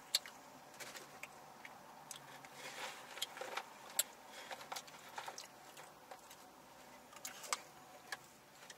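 Close-up eating sounds: chewing fries and chicken, with scattered small clicks and smacks of the mouth.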